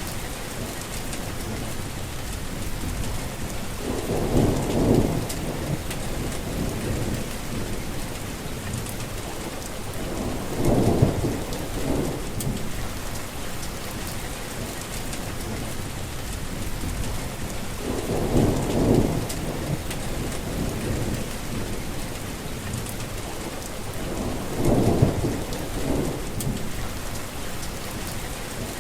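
Heavy rain falling steadily, with four short low rumbles of thunder about seven seconds apart.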